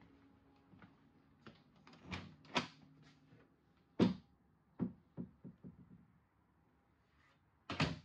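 Irregular knocks and thuds, the loudest about four seconds in and just before the end, over a faint low hum.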